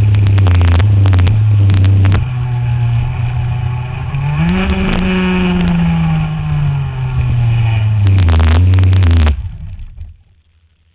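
A 125 cc two-stroke shifter kart engine running close up, blipped in short bursts with sharp cracks. About halfway through it revs up once and winds slowly down. About a second before the end it cuts off suddenly and falls silent.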